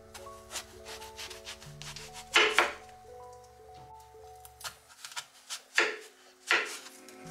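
A chef's knife cutting through a crisp apple on a wooden cutting board, with a crackling crunch as the blade goes through the flesh. There are louder cuts about two and a half seconds in and twice near the end, over soft background music.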